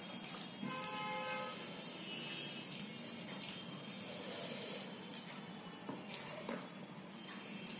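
Fingers squishing and mixing rice with dal on a steel plate, soft wet sounds with light scrapes and clicks. A brief faint ring comes about a second in.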